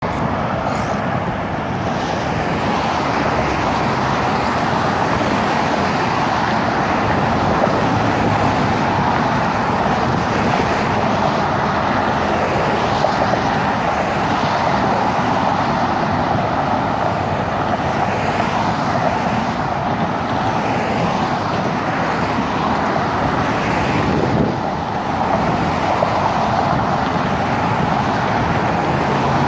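Steady noise of car traffic passing on the bridge roadway beside the sidewalk, with no single event standing out.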